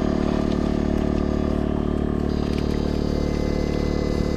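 A machine running at a steady pitch: an even drone made of many stacked tones, with no change in speed or level.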